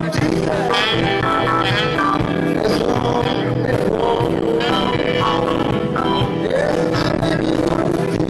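Live rock band playing: electric guitar over a drum kit, steady and loud throughout.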